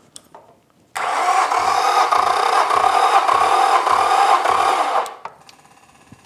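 Electric starter of a 2004 Yamaha F225 V6 four-stroke outboard cranking the engine without firing for about four seconds, plugs out and fuel injection disabled for a compression test. A low pulse comes about six times, roughly every 0.6 seconds, as the cylinder under test compresses. The cranking starts about a second in and stops about five seconds in.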